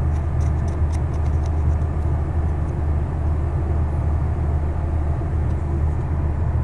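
Steady low background rumble, with a few faint light clicks in the first second and a half.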